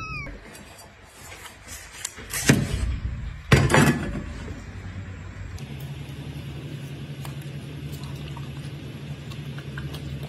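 Two loud knocks of clattering handling noise, then a steady low hum with faint scattered clicks.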